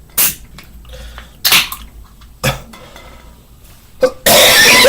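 A man coughing: four short, harsh coughs a second or so apart, then a longer, louder one near the end. He puts the coughing down to allergies.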